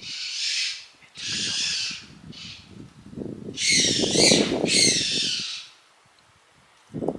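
Shrill, rasping distress cries of a young wild animal taken for a baby tanuki (raccoon dog): three short cries, then a longer wavering one a little past the middle. A low rumbling noise runs under the louder cries.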